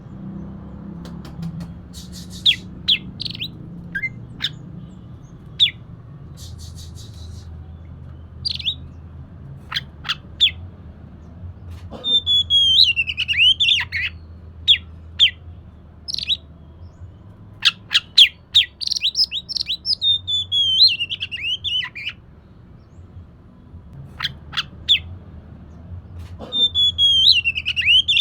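Oriental magpie-robin (kacer) singing: scattered short, sharp notes, and three bursts of rapid warbling phrases that fall in pitch, about twelve, eighteen and twenty-six seconds in. A steady low hum runs underneath.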